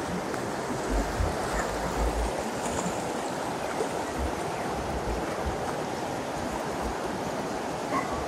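Swollen, muddy river in flood rushing steadily past the bank. A few low thuds come about a second in and again around four to five seconds in.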